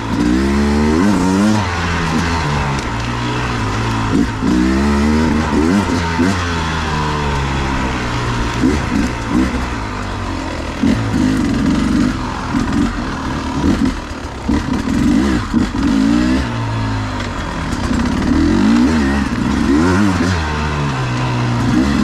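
Beta 250RR two-stroke enduro engine revving up and down over and over, the throttle opening and closing every second or so as the bike is ridden through tight trail.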